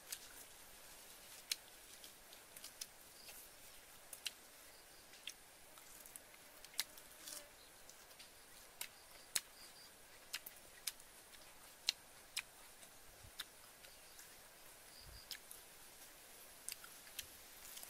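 Scattered small sharp clicks and taps, about one or two a second at irregular intervals, from eating and handling food by hand, over a faint steady hiss.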